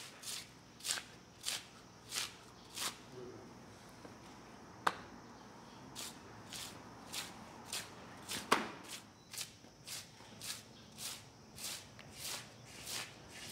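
Wet onggi clay being beaten and packed onto a tall clay mound: a steady rhythm of soft slaps, about one every half-second. The slaps pause for a few seconds near the start, and two sharper knocks stand out in the middle.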